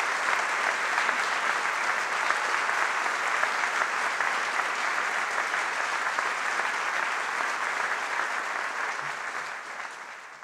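A large audience applauding steadily, the clapping fading away over the last couple of seconds.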